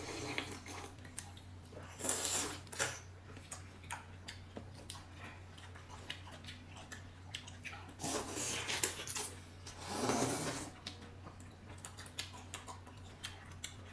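Close-up eating sounds of people biting and chewing chicken drumsticks, with scattered small clicks and rubbing and a few louder noisy bursts about two, eight and ten seconds in.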